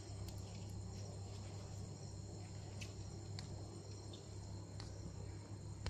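Faint, steady chirring of crickets, with a low hum underneath and no barking.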